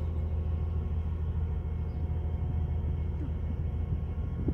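Steady low drone of a boat's motor running as the boat passes on the river.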